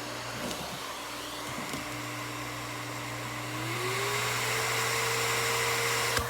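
Miele S 168 vacuum cleaner motor running steadily with a whine that glides up in pitch and gets louder about three and a half seconds in, as the motor speeds up.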